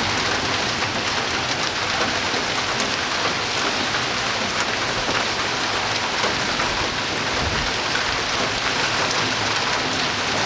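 Heavy rain pouring down steadily, an even hiss with scattered patters of drops striking nearby surfaces.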